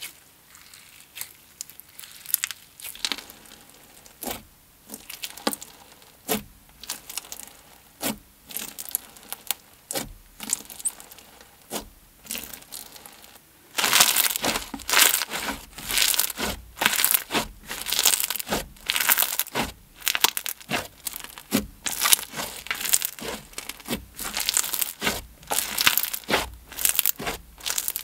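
Clear slime full of Bingsu beads being squished and stretched by hand, giving crunchy crackles and pops. The crackles are sparse and quiet at first, then turn much louder and denser about halfway through.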